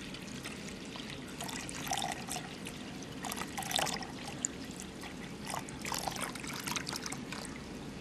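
Water trickling and bubbling in an aquarium tank, a steady wash with small irregular splashes throughout.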